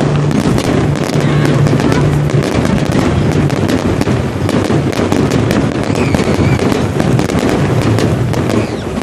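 Fireworks going off in a rapid, dense stream of crackles and bangs, many per second, with a steady low tone underneath.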